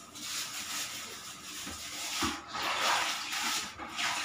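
Tap water running and splashing into a small plastic water-balloon bag as it is filled, uneven and louder in the middle.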